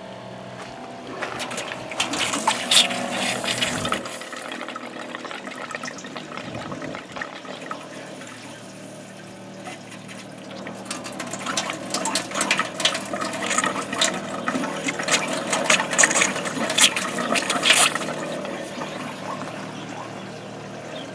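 Water running and splashing into a sink, louder in two stretches, with clattering over a faint steady hum.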